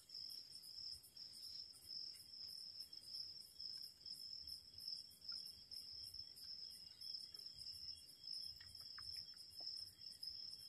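Crickets chirping: a faint, steady high trill with a quicker, evenly repeating pulsing above it.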